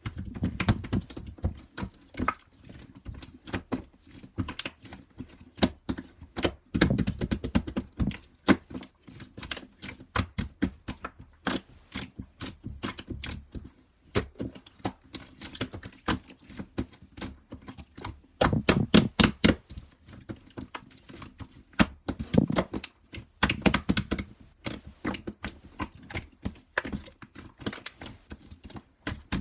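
Paper craft pieces handled by hand on a tabletop: dense, irregular taps, clicks and rustles, with several louder clusters of knocks.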